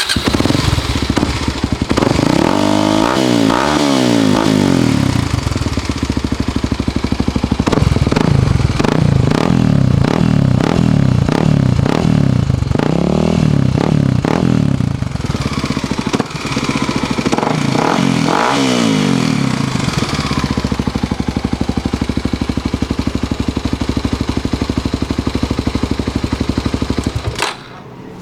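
1998 Kawasaki KLX 250's single-cylinder four-stroke engine running through an FMF aftermarket exhaust, blipped up and down in several revs, then settling to a steady idle and cutting off suddenly near the end.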